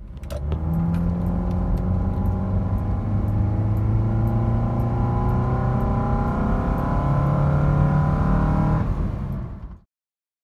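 2008 Honda CR-V's four-cylinder engine breathing through an aftermarket performance air intake, its pitch rising slowly and steadily as the revs climb. It stops abruptly near the end.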